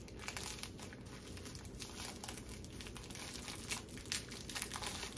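Plastic packaging crinkling and rustling as a parcel is cut open and handled, in dense irregular crackles.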